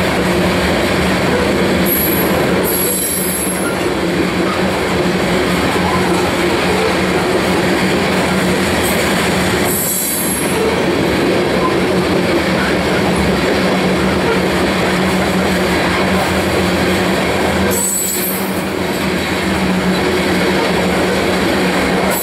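Covered hopper cars of a freight train rolling past close by: a steady loud rumble of steel wheels on rail, with a constant low hum and a few brief high-pitched wheel squeals.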